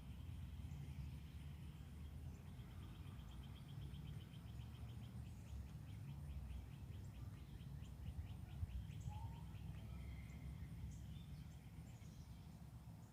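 Birds singing, one giving a long trill of evenly repeated notes for several seconds, with scattered higher chirps and a low steady rumble underneath.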